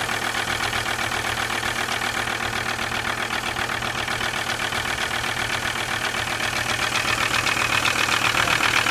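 Volvo V70 2.5 TDI five-cylinder diesel idling with its accessory belt removed, running with a fast, even knocking rhythm that gets a little louder near the end. This is the strange sound of an engine that shakes, runs badly and smokes heavily, which the owner fears means the engine needs replacing.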